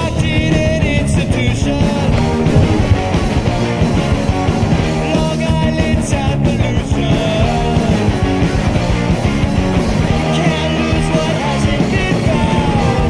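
Rock music with singing, loud and continuous.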